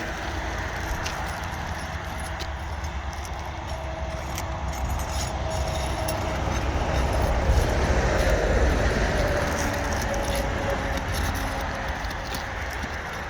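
Outdoor rumble, like wind or passing traffic, with scattered light clicks and scrapes from work on the roof shingles. It swells loudest about seven to nine seconds in.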